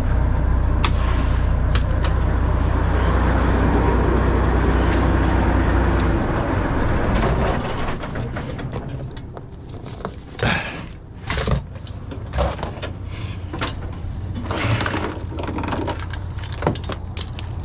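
Freightliner FLD semi truck's diesel engine running, loud and steady for about the first six seconds, then quieter as it keeps running. Over it come a series of knocks and clunks of truck doors and gear being handled.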